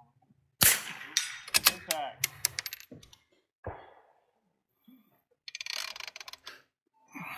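Bolt-action .22 rimfire rifle being worked on the bench: one sharp crack, then a run of metallic clicks and clinks from the bolt and spent brass dropping onto the bench. Later comes a quick series of fine clicks as the scope turret is dialed.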